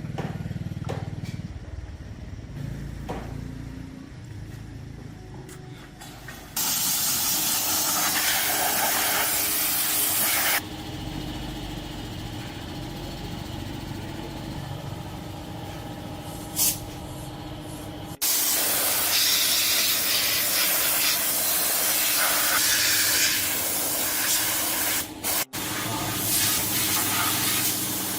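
Loud hissing spray in several cut-together stretches, starting and stopping abruptly at the cuts, over a steady machine hum.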